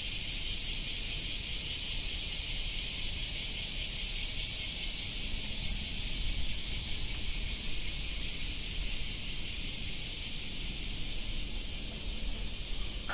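A summer chorus of insects, a steady shrill hiss pulsing rapidly and evenly, with a faint low rumble underneath.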